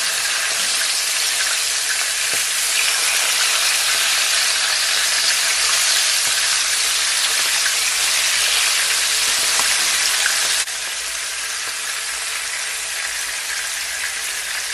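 Seasoned chicken leg and thigh pieces shallow-frying in hot oil in a pot, browning golden: a steady sizzle. It drops suddenly to a lower level about two-thirds of the way through.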